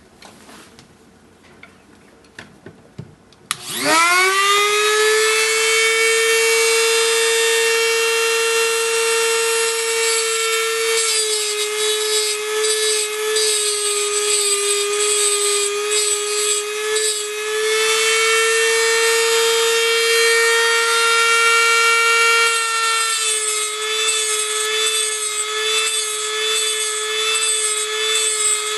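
An Eastwood tungsten grinder's motor switches on about three and a half seconds in, winds up quickly to a steady high whine, and runs on while a tungsten electrode is ground to a 22.5 degree point. Its pitch sags slightly at times during the grinding. A few light clicks come before it starts.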